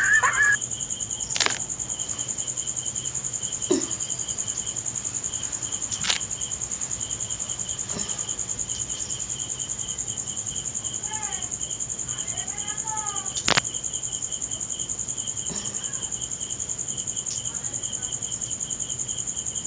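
Crickets chirping steadily in a fast, even pulse. A few sharp clicks stand out over it, the loudest about two-thirds of the way in.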